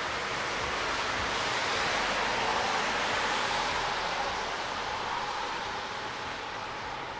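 Cars driving past on a wet road: a steady hiss of tyres on wet asphalt that swells about two to three seconds in and then slowly fades.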